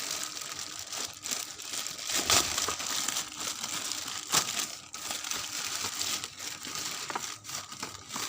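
Packaging crinkling and rustling as a soldering iron's packet is unwrapped, with sharper crackles a couple of times.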